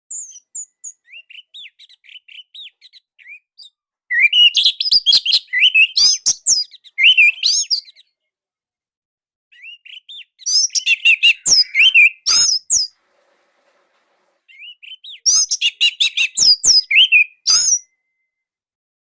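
Orange-headed thrush singing: three loud bursts of rapid, varied whistled phrases, each led in by quieter twittering, with short silent gaps between them.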